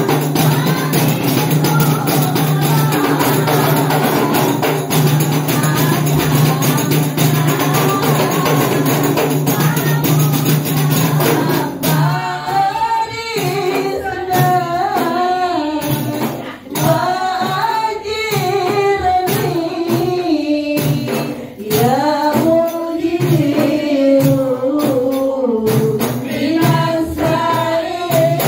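A group of women singing Islamic devotional songs (shalawat) to the beat of rebana (terbangan) frame drums. About twelve seconds in, a single lead voice takes the melody over the drumming.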